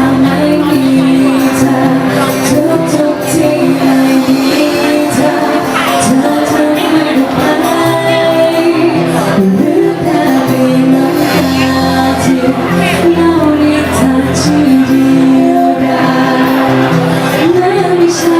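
Live band playing a Thai pop song, with a singer's voice over the accompaniment.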